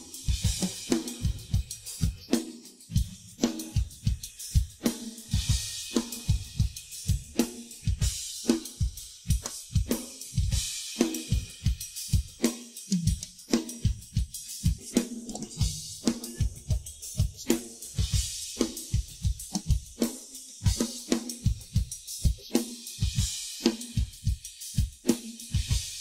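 Drum kit played alone, with no other instruments: a steady groove of kick, snare and tom strokes under hi-hat and cymbals, with crash cymbals swelling every few seconds.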